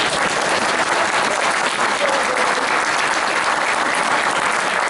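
Audience applauding steadily, a dense roomful of clapping.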